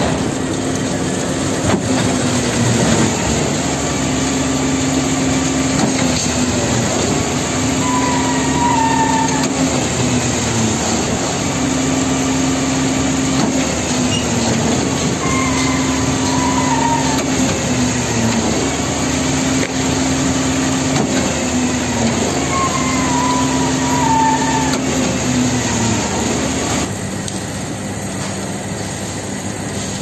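Truck-mounted concrete pump running while it pumps concrete from its hopper. The machinery note breaks and picks up again about every two and a half seconds. A short squeal falls in pitch three times.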